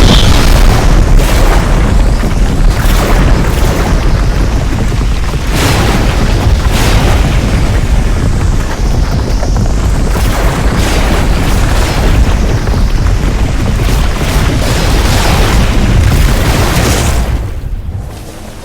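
Vacuum cleaner running close to the microphone, a loud, distorted rush of noise with a deep rumble that swells and fades; it drops away sharply near the end.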